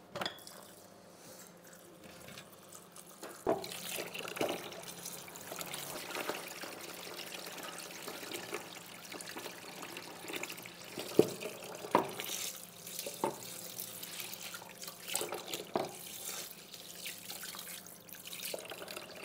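Water running from a tap into a sink, with several sharp knocks of things being handled in it.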